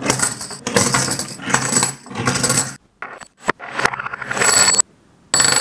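Silver coins clinking and rattling together in several quick runs, with a few sharp single clicks about three seconds in and a high metallic ring in the later runs.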